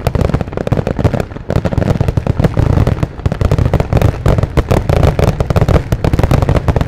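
Consumer fireworks going off in a dense, unbroken barrage: many bangs and crackles a second over a deep rumble of booms. It is a barrage the onlookers think might have been a finale.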